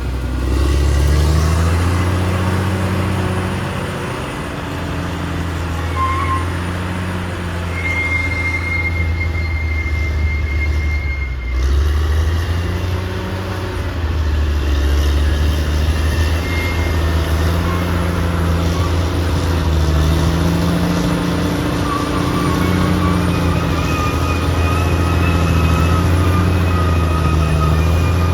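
Caterpillar D6R XL bulldozer's diesel engine running under working load, its pitch rising and falling as the load changes. A thin high whine comes and goes over it.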